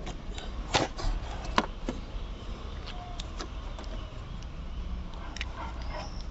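A few sharp plastic clicks and knocks, the loudest about a second and a second and a half in, as the starter relay is worked out of its socket in the Ford Mondeo MK3's fuse and relay box, over a low steady hum.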